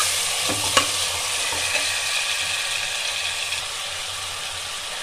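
Sliced onions sizzling steadily in hot oil in an aluminium pressure cooker as they are browned, with a steel ladle scraping and clicking against the pot in the first second.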